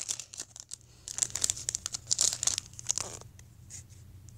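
Foil baseball-card pack wrapper crinkling and tearing as it is opened by hand, in crackling bursts that stop a little after three seconds in.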